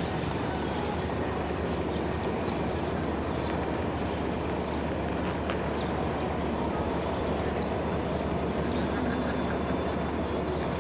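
Diesel lorry engine idling: a steady, even low rumble with no change in pace.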